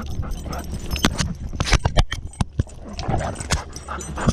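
Sharp clicks and knocks of a GoPro jostling in a dog's chest-harness mount as a golden retriever moves about, a quick run of them in the middle and more near the end, over a steady low rumble of handling and wind on the camera.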